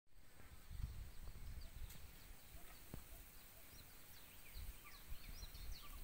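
Small birds chirping, many short high notes that fall in pitch, getting busier toward the end. Under them, gusts of wind rumble on the microphone.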